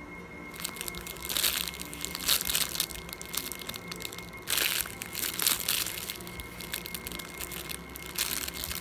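Clear plastic packaging bag crinkling irregularly as a foam squishy toy inside it is handled and squeezed, with a louder crackle about halfway through and another near the end.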